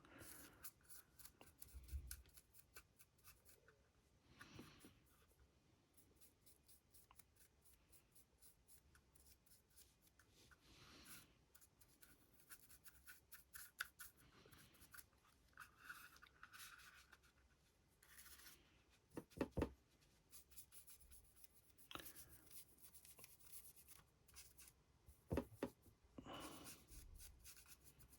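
Faint scratching and rubbing of a paintbrush working paint onto a 3D-printed model's base, broken by a few light clicks and knocks, the loudest a little before the 20-second mark and again near the end.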